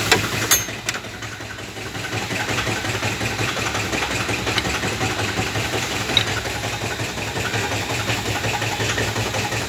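BMW four-cylinder diesel engine idling steadily, carrying the noise that the mechanic traces to a failing crankshaft damper pulley. There is a sharp click just after the start, and the sound drops for about a second before coming back.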